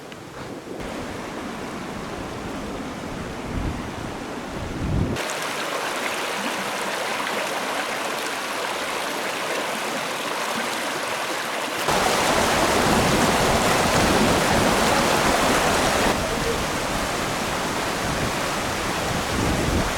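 A steady rushing noise, rather like running water or wind on the microphone. It jumps louder and brighter about five seconds in, louder again about twelve seconds in, and drops back a little near sixteen seconds.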